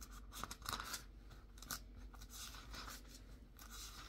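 Thin Bible pages rustling faintly as they are turned, with a few short crisp flicks.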